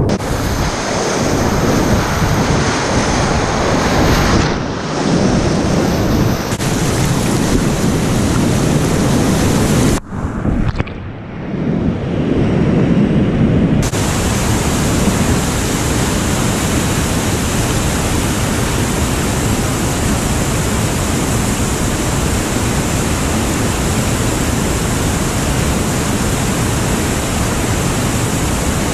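Steady loud rush of whitewater rapids on a small river at medium-high flow, heard first from a kayak on the water, then from the rocky bank after an abrupt change about 14 seconds in.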